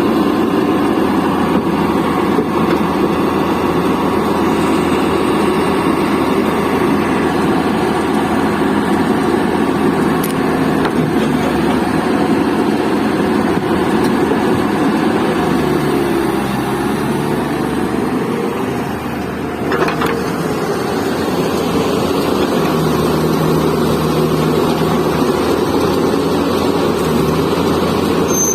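Heavy diesel engine running steadily, easing briefly about two-thirds of the way through, with a single short knock just after.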